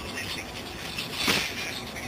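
A small metal bell stuffed with catnip rattling as it is jostled, with a stronger burst of rattling about a second in.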